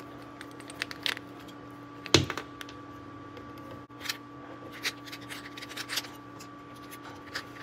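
Screwdriver backing out the small screws of a DC motor's junction box cover: light metallic clicks and scrapes of the driver tip and screws against the sheet-metal cover, with one sharper knock about two seconds in.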